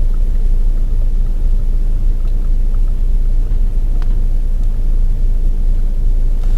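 Steady low rumble of the Skoda Octavia running, with one faint click about four seconds in; no steering-rack knock stands out.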